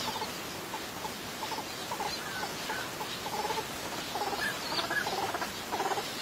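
Northern pintail ducks calling: a run of short, squeaky calls with a few higher whistled notes among them, coming more often and louder in the second half.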